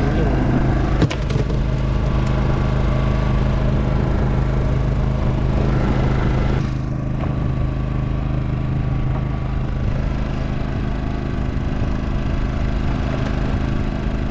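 Fishing boat's engine running steadily with an even hum, with a single knock about a second in.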